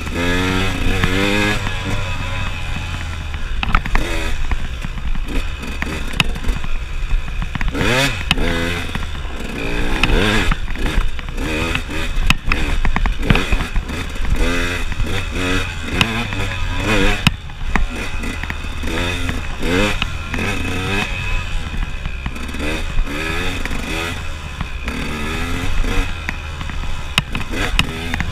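KTM enduro motorcycle engine revving up and down over and over as the bike accelerates and backs off along a rough dirt trail, with occasional knocks.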